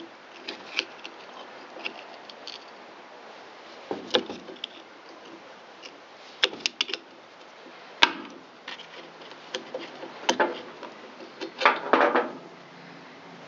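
Scattered clicks and knocks of small plastic and metal parts being handled as fuel hoses are worked off the carburetor of a Stihl BG55 blower and the carburetor is lifted out, with a sharp knock about eight seconds in and a quick cluster of taps near the end.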